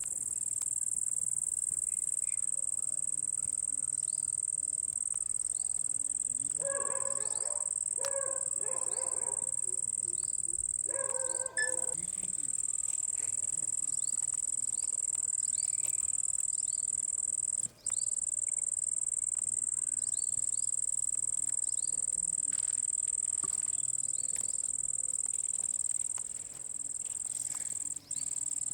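Steady high-pitched cricket chorus, with a few short pitched voice-like calls between about seven and twelve seconds in. The chorus cuts out briefly a couple of times.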